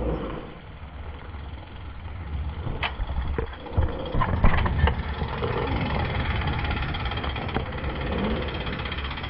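Mountain bike riding down a trail, heard from a camera on the rider: wind rumbling over the microphone and tyres rolling on dirt, with a few sharp rattles and knocks of the bike about three to five seconds in.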